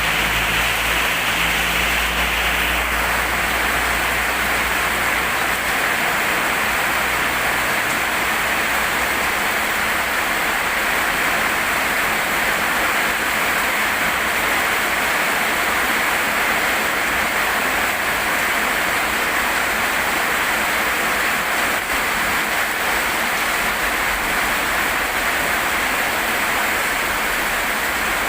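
Rain falling in a steady downpour, an even hiss. A low hum is heard underneath for the first several seconds, then fades out.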